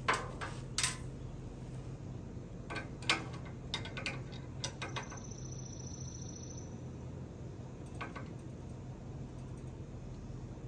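Scattered metal clicks and knocks as a combination lock is handled and worked into an equipment rack's lock housing, over a steady low hum.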